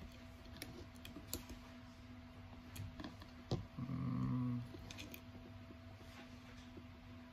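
Light scattered clicks and taps of small parts and tools being handled on a work surface, with a brief low buzz about four seconds in, over a faint steady hum.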